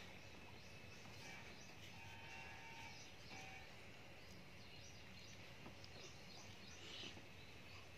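Near silence: faint steady background noise, with a few faint short chirps in the first half.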